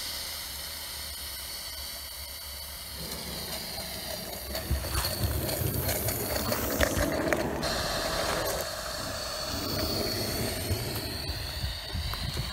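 Gauge 1 live-steam Barrett J65 tank locomotive hissing steam, then clattering as it moves off along the track, with irregular clicks from its motion and wheels between about four and eight seconds in.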